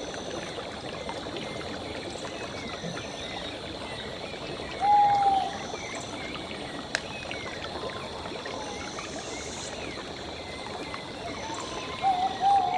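Running water with many short chirps scattered over it, a steady nature ambience. A brief held note sounds about five seconds in, and a few more come near the end.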